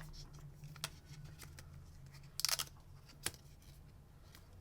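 Packaging being handled: a few light clicks and a short papery crinkle about two and a half seconds in.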